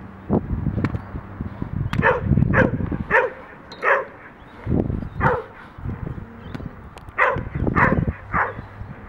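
A dog barking on the leash in short, sharp barks, about eight of them in two groups, with a gap in the middle.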